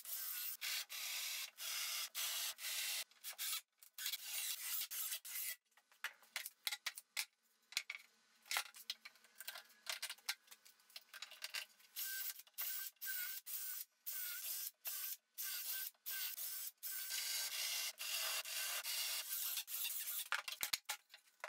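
Cordless drill boring, countersinking and driving screws into birch plywood: a thin, hissy cutting sound in many short runs, broken by brief gaps.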